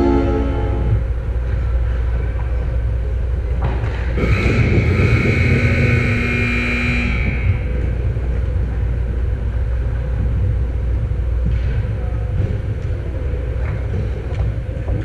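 Steady low rumble of ice-rink ambience heard through a net-mounted action camera. A long horn-like held note stops about a second in, and a second held tone sounds for about three seconds near the middle.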